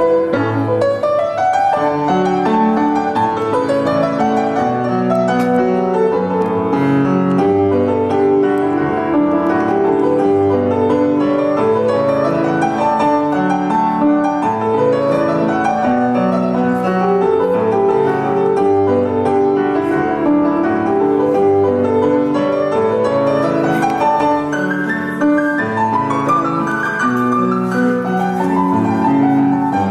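Piano music, a continuous flow of notes at a steady level.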